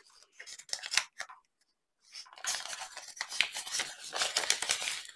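Clear plastic bag crinkling and crackling as it is handled and opened, a few scattered crackles first, then a dense run of them from about two seconds in.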